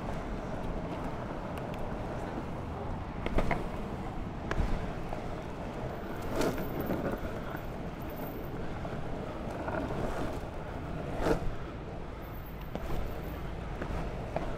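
Longboard wheels rolling steadily over an asphalt path, with wind on the microphone and a few short knocks from bumps along the way.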